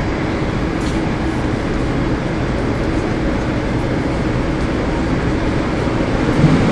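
Elevated people-mover tram approaching the platform, a steady rushing rumble as the train pulls in.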